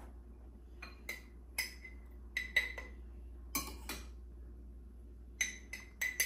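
Metal spoon clinking against ceramic bowls and a glass mason jar as chopped vegetables are scooped up and spooned in. There are about a dozen short, bright clinks, several in quick pairs or threes, with a pause in the middle and a cluster near the end.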